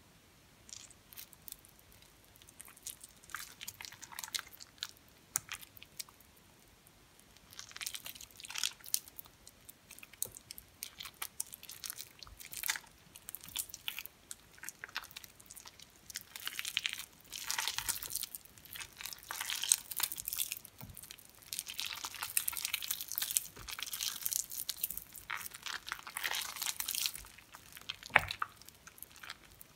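Soaked, mushy recycled soap pieces being squeezed and kneaded by hand in a glass bowl: soft, wet crackling crunches as the soap is pressed and broken apart. Sparse at first, denser and louder from about eight seconds in.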